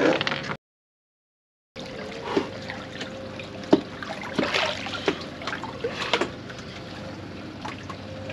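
Lake water splashing, sloshing and trickling around a person moving in it at the side of a boat, with irregular sharp splashes. About half a second in the sound drops out completely for about a second.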